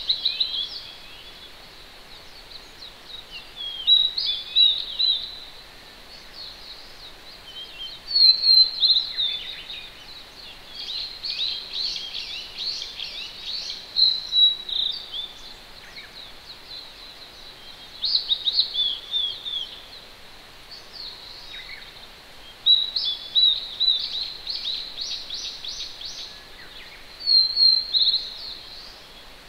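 Wild songbirds singing short, quick, high phrases every few seconds over the steady hush of a distant mountain stream.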